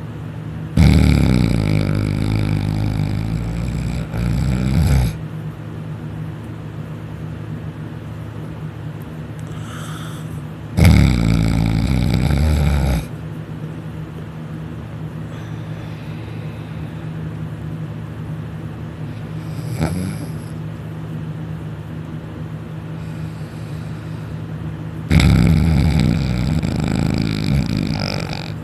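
A man snoring loudly in deep sleep: three long snores, each lasting two to four seconds, with long quiet breaths between them. A steady low hum runs underneath.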